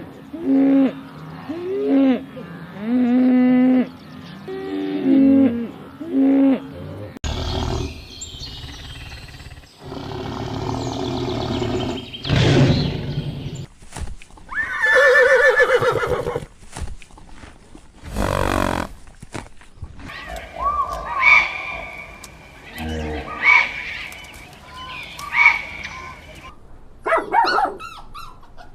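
A series of different animal calls cut together. One call repeats several times in the first seven seconds, then the sound cuts to other animals' calls that change every few seconds.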